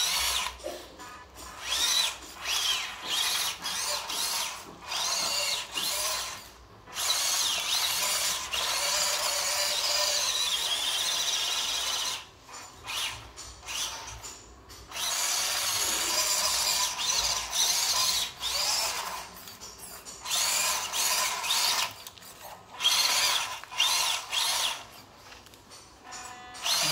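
Electric motor and gearbox of a WPL B-1 RC military truck whining as it drives over sand, in short throttle bursts whose pitch rises and falls, with two longer runs of several seconds in the middle.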